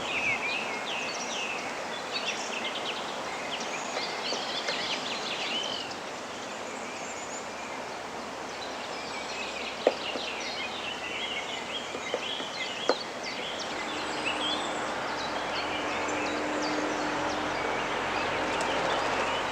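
Wild songbirds chirping and singing over a steady outdoor hiss, with two sharp knocks about ten and thirteen seconds in. A faint steady hum comes in during the second half.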